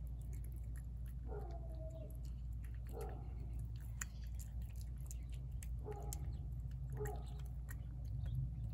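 A cat chewing wet canned cat food from a plate, with many small wet clicks. Four short pitched calls sound over it.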